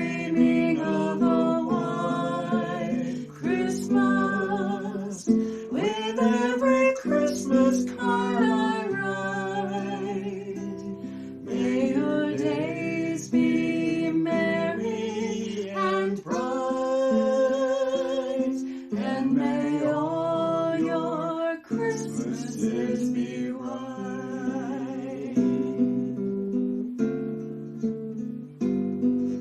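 Music: an acoustic guitar strummed in chords under a sung melody with vibrato.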